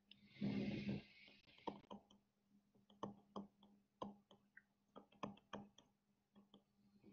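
Faint, irregular taps and clicks of a stylus on a tablet screen as an expression is handwritten, over a low steady hum.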